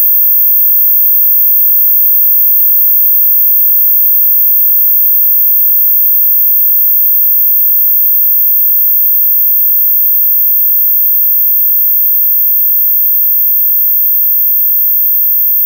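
Experimental electronic sound-art piece: a loud, steady, very high-pitched sine tone, with fainter thin tones coming in about five or six seconds in and growing a little stronger near the end.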